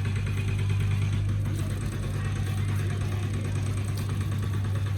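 An engine running steadily with a low hum and a fast, even pulsing.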